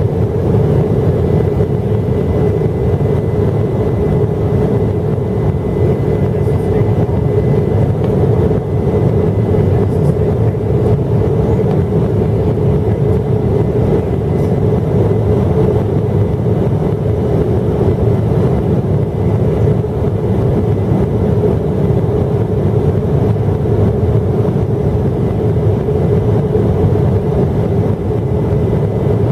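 Steady drone inside a jet airliner's cabin during the climb after takeoff: engine and airflow noise with a constant low hum.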